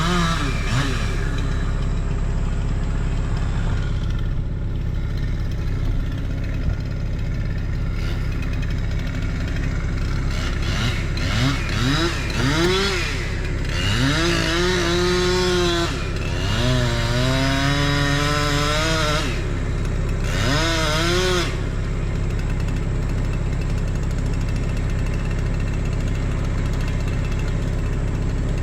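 A chainsaw revving up and down as it cuts into a pecan trunk, in spells from about 11 to 21 seconds in, over an engine idling steadily underneath.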